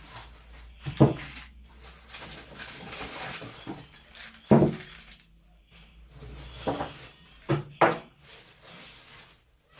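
Household items being handled and set down: several sharp knocks and clatters, two close together near the end, with rustling in between.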